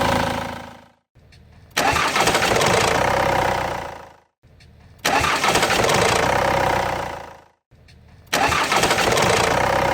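Ford Transit 2.0 turbodiesel cold-starting, heard three times in a row. Each time the engine catches suddenly and runs for a couple of seconds before fading out. The brief knock and rustle at start-up comes from the timing chain: it is stretched, and the tensioner is not taking up its slack.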